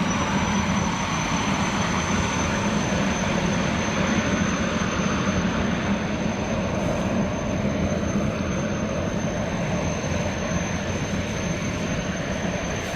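Jet boat running steadily, a constant loud engine drone with a thin, steady high whine over it.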